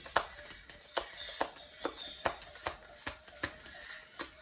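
Tarot cards being shuffled by hand: a crisp slap of cards about two and a half times a second, in an even rhythm.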